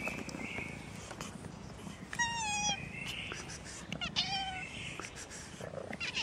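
Tabby cat meowing: two loud meows, each about half a second long, about two and four seconds in, each falling slightly in pitch, and a third starting at the very end, with small rustles and clicks between them.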